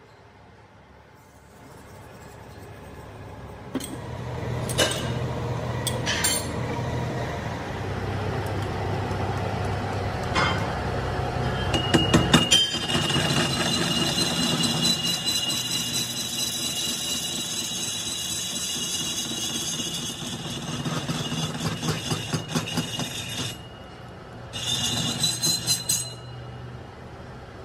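Metal lathe turning a cast truck wheel hub: the machine hums with a few sharp clicks, then about halfway through the cutting tool bites into the metal with a steady high hissing scrape and a thin ringing tone. The cut stops briefly near the end and starts again.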